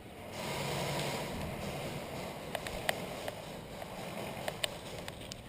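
Wind rushing over the microphone, with a run of sharp clicks starting about halfway through.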